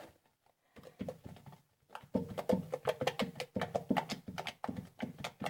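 Fluffy shaving-foam slime being squeezed and worked by hand, giving a fast run of small popping clicks from trapped air. The clicks are sparse at first and grow dense and rapid about two seconds in.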